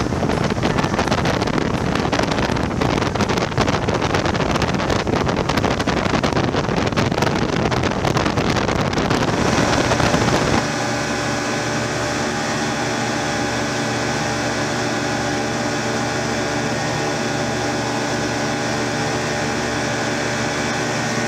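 Motorboat engine running steadily at speed. For the first ten seconds or so it is buried under a gusty rush of wind on the microphone and water; then the sound changes suddenly to a clear, steady engine drone holding one pitch.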